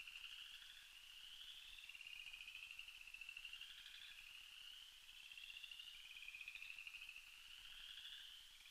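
Faint night chorus of frogs: overlapping high-pitched pulsed trills, each about a second long and some rising slightly in pitch, repeating without a break.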